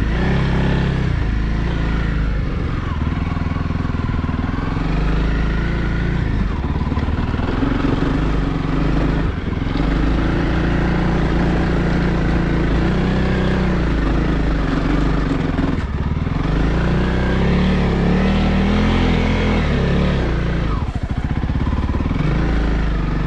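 Honda CRF300L's single-cylinder four-stroke engine running under load in low gear on a snowy climb. The revs rise and fall repeatedly, with brief drops in engine note three times.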